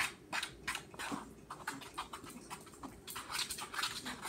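Spoon stirring sticky homemade slime in a plastic bowl: a run of short wet clicks and squelches, several a second.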